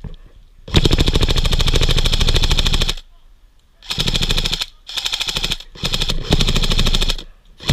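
Airsoft rifle firing on full auto: one long burst of about two seconds, then four shorter bursts in quick succession, each a rapid, even mechanical clatter.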